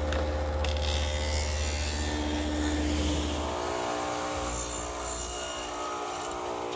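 Woodworking power tool running steadily and cutting a rabbet along the edge of a wooden strip, with the cutting noise strongest in the first half.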